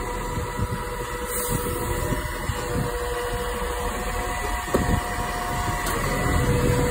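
Side-loader garbage truck running, its diesel engine rumbling under a steady whine as the hydraulic grabber arm extends out toward a wheelie bin. A clunk about five seconds in.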